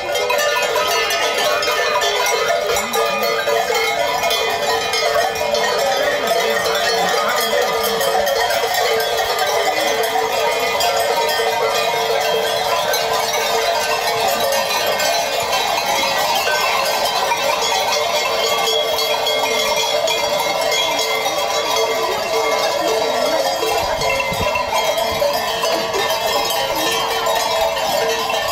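Many cowbells clanging together in a dense, unbroken jangle, swinging on the necks of a herd of brown cattle as they walk past.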